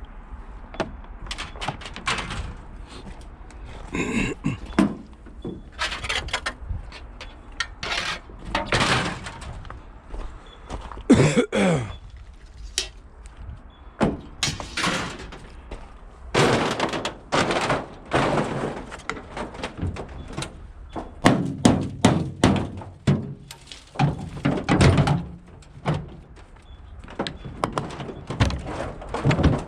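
Scrap being unloaded from a pickup truck bed: irregular thuds, knocks and bangs as pieces are thrown and dropped, some of them briefly ringing.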